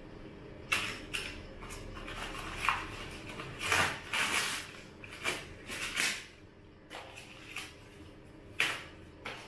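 A new bicycle being handled at its handlebar and stem while still partly wrapped: a series of short clicks, rattles and rustles of packing plastic, with a longer rustle about four seconds in.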